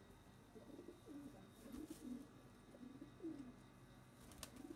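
Domestic pigeons cooing, faint and repeated, the coos overlapping one after another. A few sharp clicks come near the end.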